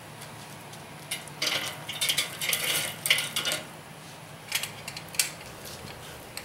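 Hickory wood chips dropped onto the charcoal beside the Weber kettle grill's grate, clattering and rustling irregularly for a couple of seconds, followed by a few sharp clicks.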